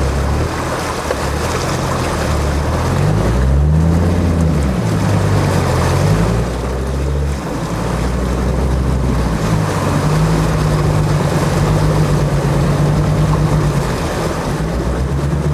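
Land Rover Defender 90 Td5 diesel engine working as the vehicle wades a deep, fast-flowing river, revs rising and falling a few seconds in and then holding steadier, over the rush of floodwater against the body.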